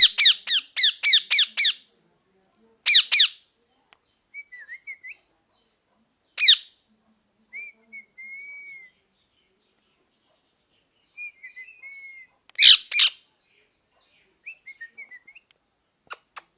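A parrot calling: a quick run of about eight sharp, loud squawks at the start, then single loud squawks every few seconds, with soft warbling whistles in between.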